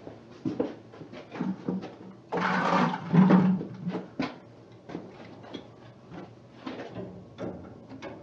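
Irregular knocks and clatter of hands and tools handling things around overhead pipes, with a brief hissing rush a little over two seconds in and the loudest thump just after it.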